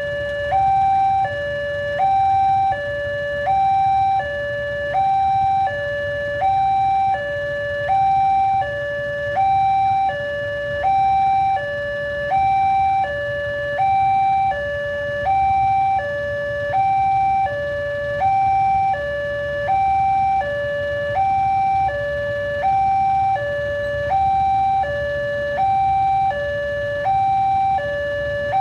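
Railway level-crossing warning alarm sounding a steady two-tone hi-lo signal, one high–low cycle about every second and a half, over a low rumble.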